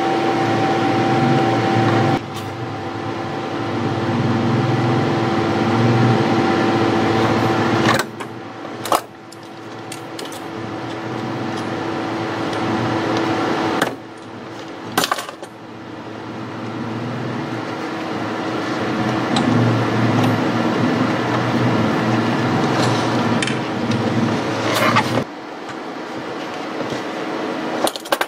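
Small electric drill running in long stretches while drilling screw holes through a laptop's bottom casing for the hinge screws, with a steady whine that stops and restarts several times. A few sharp clicks come from the casing or tools being handled.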